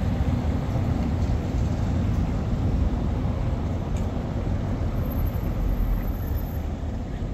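Wind buffeting the microphone: a steady, flickering low rumble over faint outdoor street ambience.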